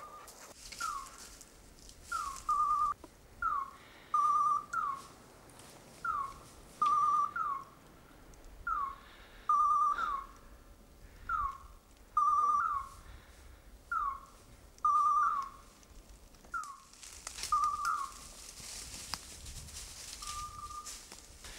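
Electronic beeper collar on a pointing English setter sounding its point signal, the sign that the dog is standing still on point. It gives short high beeps over and over, about one a second, falling chirps alternating with steady warbled notes.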